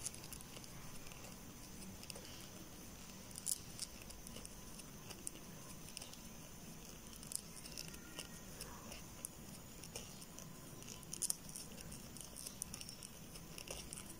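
Faint, scattered clicks and rustles of a crochet hook working yarn into double crochet stitches.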